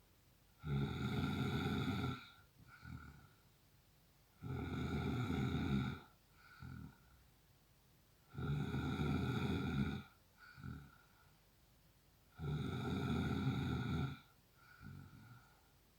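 A man snoring in a steady rhythm: four long, loud snores about four seconds apart, each followed by a shorter, quieter breath.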